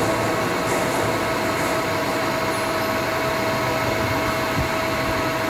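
CNC lathe running steadily, its machine noise carrying a constant whine.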